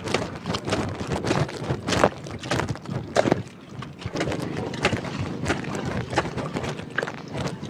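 Shovels scraping and splashing through rain-soaked paddy grain, with irregular scrapes and knocks over a steady wash of rain and wind noise.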